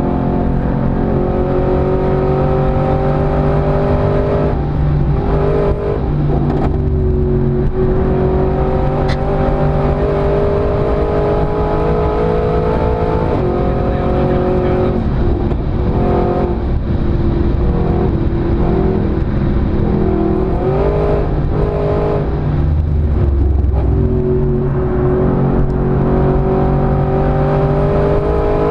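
Mercedes-Benz SLS AMG's naturally aspirated 6.2-litre V8 under hard acceleration on track, its note climbing steadily through the revs and then dropping abruptly, several times over.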